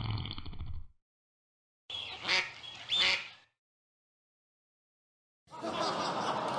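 Duck quack sound effect: two loud quacks less than a second apart, about two seconds in. Near the start a low, rumbling effect cuts off, and about five and a half seconds in crowd laughter begins.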